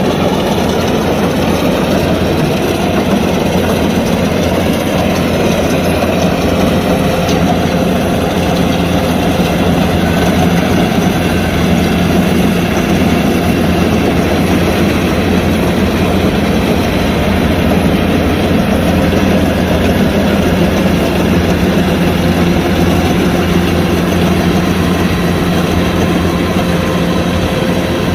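Kubota DC-105X combine harvester running steadily, its diesel engine and machinery making a loud, even drone with a constant low hum.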